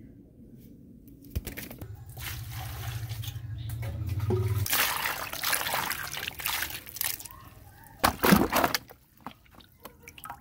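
Water pouring and splashing over peeled cassava roots in a bamboo basket, trickling as they are rinsed. A low steady hum runs under the first few seconds, and two short loud splashes come about eight seconds in.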